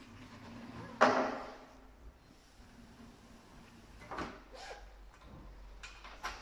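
Aluminium sliding door panel knocking shut against its frame about a second in, the bang fading out briefly. It is followed by a few lighter clicks and rattles of the door's handle and lock.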